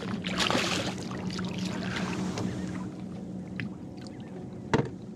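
A hooked redfish thrashing and splashing at the water's surface beside the boat, loudest for the first two and a half seconds and then dying down. A single sharp knock near the end.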